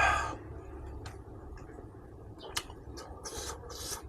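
Close-miked eating sounds from a pork mukbang: a loud wet mouth sound at the start, then a sharp click and short smacking, hissy mouth noises near the end.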